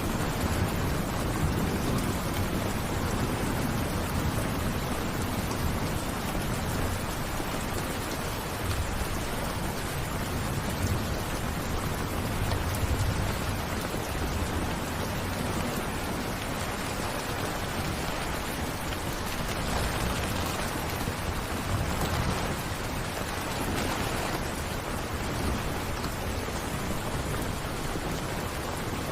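Steady rain falling, an even hiss of drops, with a low rumble that swells and fades a few times.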